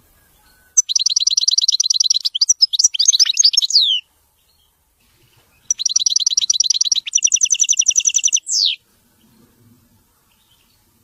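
European goldfinch singing a widani-style song in two phrases with a pause between. Each phrase opens with a fast, high trill of rapidly repeated notes and ends in twittering notes and a falling slur.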